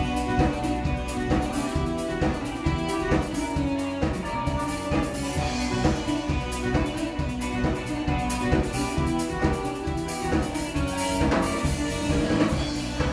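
Live band playing an upbeat song: a drum kit keeps a steady beat under electric guitar and keyboard.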